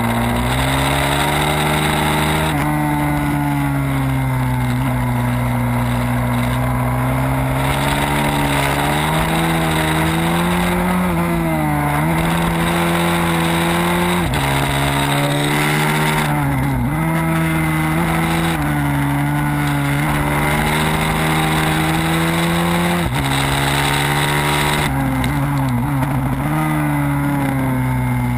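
Pit bike's single-cylinder engine revving hard as it is ridden fast around a track, heard from on the bike. Its pitch climbs slowly and drops sharply several times as the throttle is rolled off and gears change.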